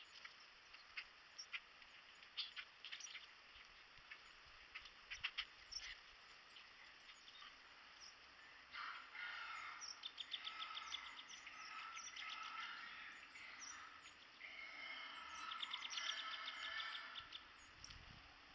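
Small birds chirping and chattering in repeated quick calls through the second half, over faint outdoor ambience. Scattered light clicks come before the calls.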